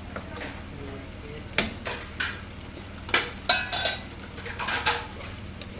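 Spoon stirring in a frying pan of pork asado, with several sharp clinks and knocks of kitchenware starting about a second and a half in, the loudest about three seconds in.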